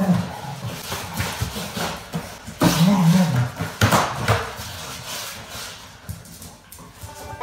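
Scuffling on a tiled floor between a beagle and a person in a chicken costume: irregular knocks and rustles, with a short, low pitched vocal sound about three seconds in.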